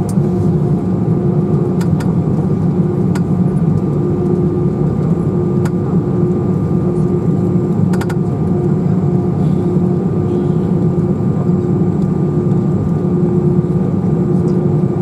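Cabin noise inside an Airbus A320 taxiing after landing: a steady hum from the engines at taxi power, with a tone that breaks off and returns every second or so and a few faint clicks.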